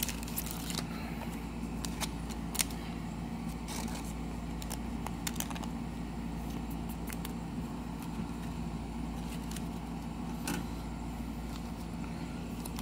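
Light clicks and rustles of a trading card in a plastic sleeve being handled close to the microphone, over a steady low hum.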